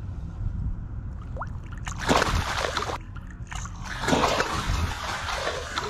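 A bass splashing in the water as it is released by hand from the side of a boat, with two splashy bursts, about two and four seconds in.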